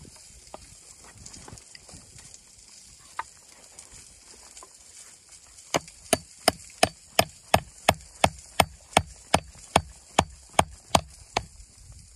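Hatchet chopping into a wooden board: about halfway through, a fast, even run of about sixteen sharp blows, roughly three a second, after a few light taps and handling sounds.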